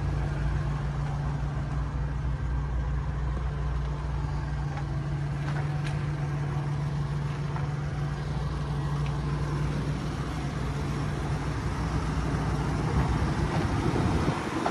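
2001 Ford F-150 engine idling steadily with a low, even hum.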